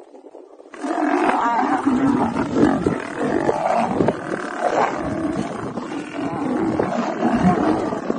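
A male lion and lionesses fighting, with loud roars and growls that start about a second in and go on without a break.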